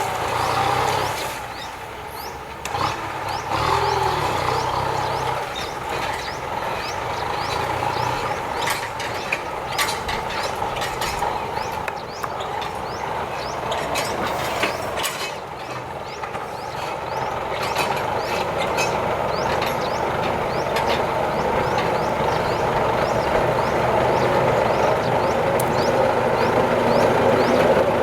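Kubota M9540 tractor's diesel engine running under load while ploughing, with scattered clanks and knocks. The sound dips twice and grows louder toward the end.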